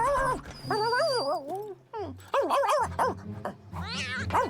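Cartoon dog vocalising: a run of short, pitched yips and whines that bend up and down in pitch. A brief, thin, high whistle-like tone sounds about a second in.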